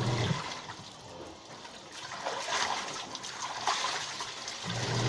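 Hand-washing laundry in a basin: water splashing and dribbling as soapy clothes are squeezed and wrung out, with a few louder splashes in the second half.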